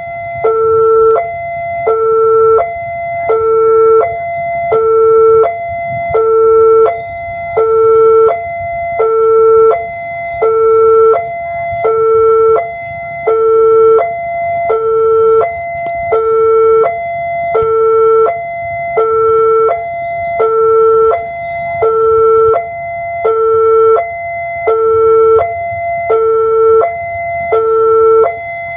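Railway level-crossing warning alarm sounding while the barrier is down, signalling that trains are approaching: an electronic two-note warning tone repeating at a steady, even pace.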